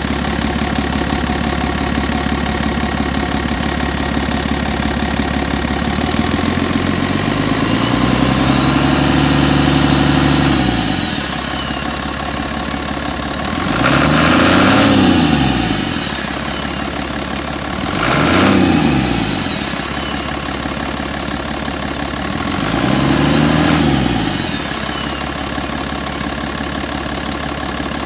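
Mercedes MBE 900 7.2-litre inline-six diesel engine idling steadily. It is then revved four times, each rev rising and falling back to idle: one slow rev and three quicker blips. A high whistle rises and falls with each rev.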